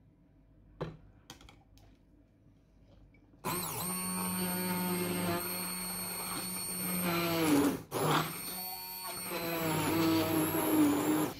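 Blender motor puréeing chopped tomatoes. It starts suddenly after a few light clicks, runs steadily, slows and cuts out for a moment about two-thirds of the way through, then starts again and runs on.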